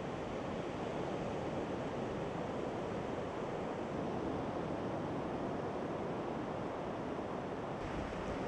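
Ocean surf breaking and washing onto a beach, a steady rushing noise.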